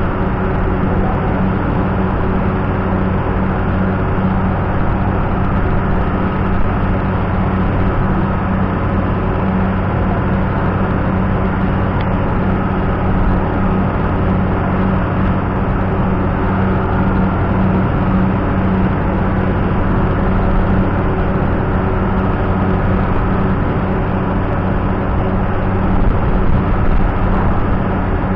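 Loud, steady drone of a running engine with a deep even hum, like the noise inside an engine room.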